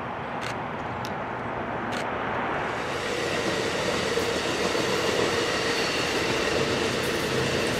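Bilevel passenger coaches rolling past close by: a steady rush of steel wheels on rail with a few faint ringing tones. It comes in about a third of the way through, after a quieter stretch broken by a few sharp clicks.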